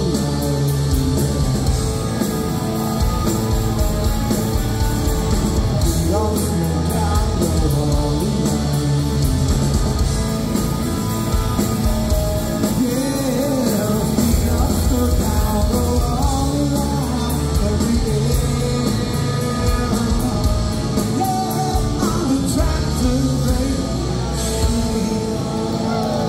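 Live rock band playing a song: electric guitars, bass and drums with a lead singer singing over them.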